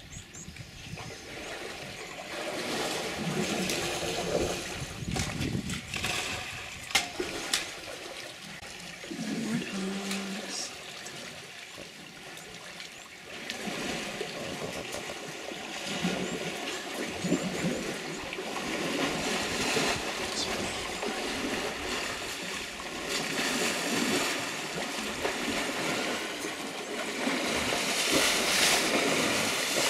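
African bull elephants wading and drinking in a waterhole: water sloshing, trickling and splashing. The splashing grows louder near the end as one bull churns through the water.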